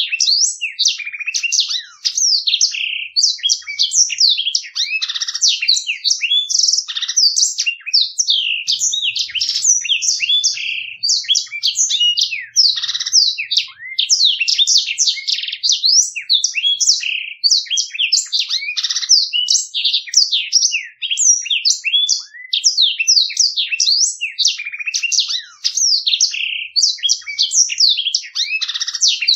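Black-throated canary (blackthroat) singing a long, unbroken rolling song: clear, rapid high chirps and trills strung together with no pause.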